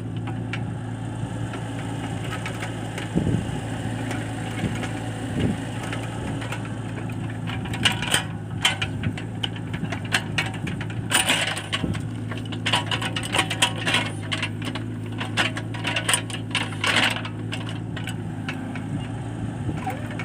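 Compact excavator's diesel engine running steadily. From partway through there are bursts of sharp metallic clanking and rattling as the machine works.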